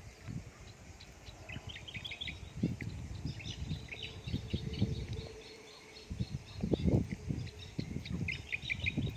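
Small birds chirping in quick runs of short high notes, over low, irregular rumbles and thuds that are loudest about seven seconds in.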